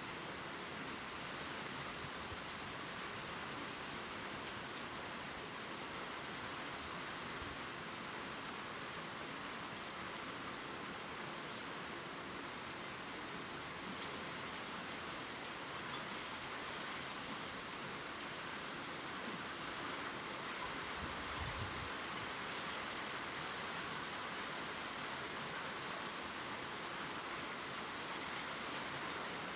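Steady gentle rain pattering on leaves, an even hiss with scattered faint drop ticks and a brief low thump about twenty seconds in.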